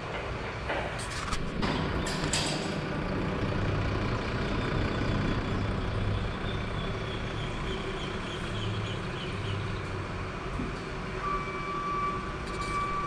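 A large vehicle's engine running steadily, with a few sharp knocks in the first couple of seconds. A steady electronic beep starts near the end.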